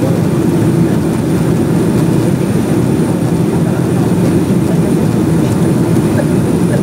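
Jet airliner's engines and airflow heard inside the passenger cabin during the climb after take-off: a steady, unbroken low rush, with a faint thin high whine above it.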